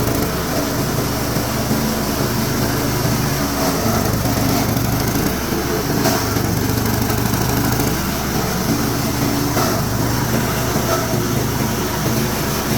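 Motor-driven waste chopper-grinder running steadily while grinding veneer and plywood scraps through a 5 mm screen, with a couple of sharp ticks partway through.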